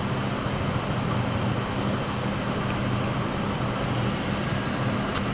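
Steady whir of a small electric fan or blower on a workbench, with a low, even hum under it. A single click sounds near the end.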